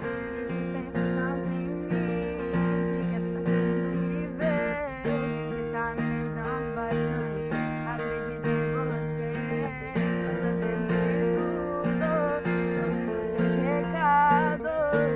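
A young woman singing over a strummed acoustic guitar.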